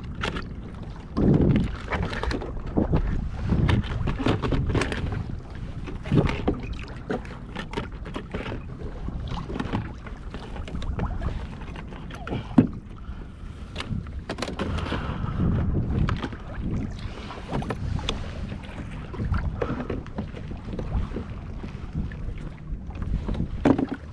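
Water sloshing against a kayak's hull with wind on the microphone, over scattered clicks and knocks of fishing gear being handled, one sharp knock about halfway through.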